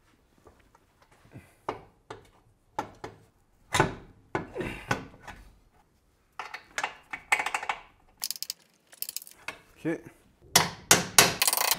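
Hand tools knocking and clinking on the BMW E38's rear swing arm: hammer taps and a long bar levering the arm while its new bushing is worked into place for the mounting bolt. The knocks come irregularly, sparse at first and thicker and louder toward the end.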